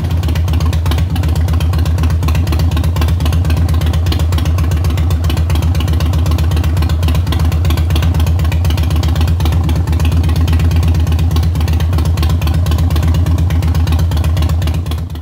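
Harley-Davidson Heritage Softail's V-twin, bored out to 1550 cc with 211 cams, idling steadily through Vance & Hines exhaust pipes, with an even, rapid firing pulse. The sound cuts off abruptly at the very end.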